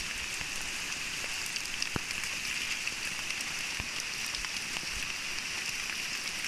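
Steady rain falling, with scattered drop-like ticks and a steady high-pitched hum running through it.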